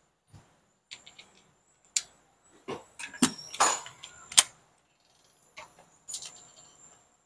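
Irregular sharp clicks and knocks of metal tools being handled while the pan bolts are readied for removal, loudest about three to four and a half seconds in.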